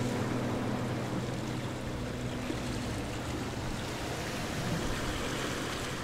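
Steady rushing noise of wind, with the last faint notes of background music fading out in the first few seconds.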